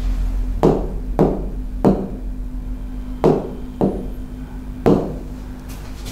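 About six sharp knocks at uneven intervals, each with a brief ringing tail, over a steady low hum.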